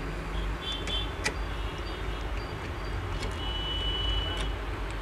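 A few small, sharp clicks and taps from a screwdriver and fingers working on a laptop motherboard as a processor is fitted, over a steady low background rumble.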